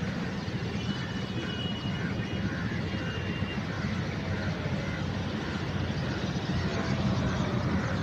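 Steady low rumble of a motor vehicle running, with a faint repeated high note about twice a second in the middle.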